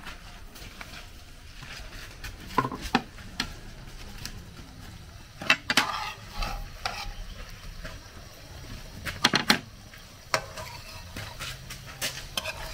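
Plantain-dough snacks sizzling in oil in an aluminium frying pan, while a metal spatula and fork clink and scrape against the pan as they are turned. The clinks come in short clusters, about three seconds in, about six seconds in and about nine seconds in, and again near the end.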